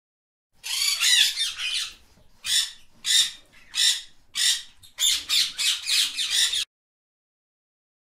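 Parrot squawking: a burst of harsh, high calls, then four single squawks about evenly spaced, then a quicker run of calls that cuts off suddenly.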